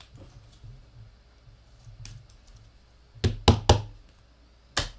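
Rigid plastic card top loaders knocked down on a tabletop: three quick sharp knocks a little over three seconds in and one more near the end, with a faint click before them.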